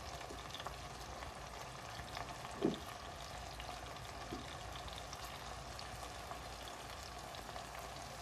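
Sliced onions frying in oil in a pan: a steady sizzle with small crackles. One brief pitched sound about a third of the way in.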